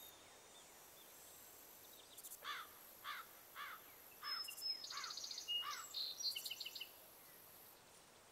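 Small songbirds singing: a run of five downward-slurred whistled notes about half a second apart, then a quick jumble of higher chirps and trills, over quiet outdoor ambience.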